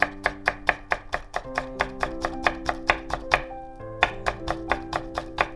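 Petty knife mincing garlic on a wooden cutting board: quick, even knife taps about five a second, pausing briefly a little past three seconds in and then resuming, over background music.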